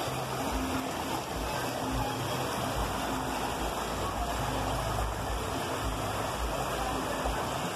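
Shallow river water flowing and rippling over rocks as a steady rushing noise.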